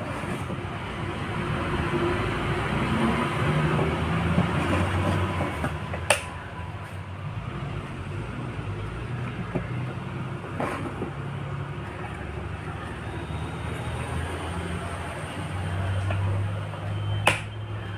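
Steady background rumble and hiss with a shifting low drone, like machinery or traffic, and three sharp clicks spread through, from the wiring, plug and switches of a bulb test circuit being handled.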